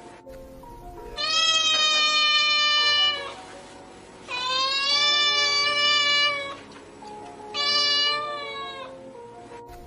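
Domestic cat meowing: three long drawn-out meows, the first two about two seconds each and the third shorter, over faint background music.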